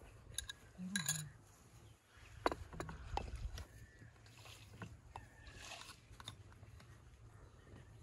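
Small glass bowls clinking and a wooden spoon tapping and scraping in a clay jar as baking ingredients are handled, with a few sharp ringing clinks about a second in and duller knocks a little later, over a low steady rumble.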